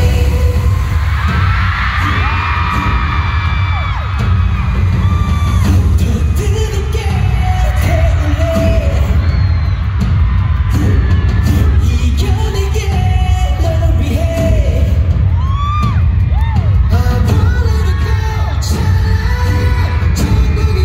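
A K-pop pop song performed live over a concert PA: several voices singing over a beat with heavy, booming bass.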